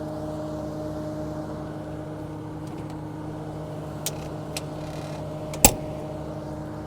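Diesel engine of heavy equipment idling steadily. A few light clicks, then one sharp click near the end.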